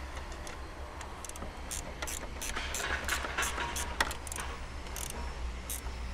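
A spanner tightening a windstop bracket bolt, clicking about three times a second from about a second and a half in until near the end, like a ratchet working back and forth.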